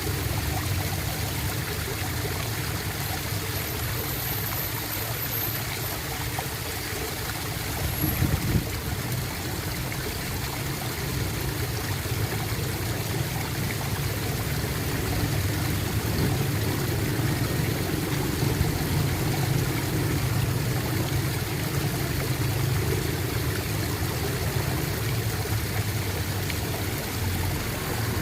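Flowing water gurgling steadily, with a brief louder surge about eight seconds in.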